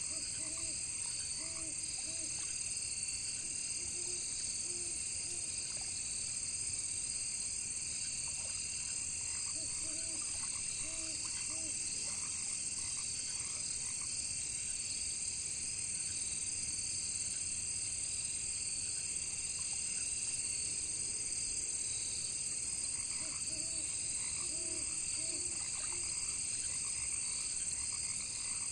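Frogs croaking in short runs of three or four low calls every few seconds, with a long pause in the middle, over a steady high-pitched chorus of crickets.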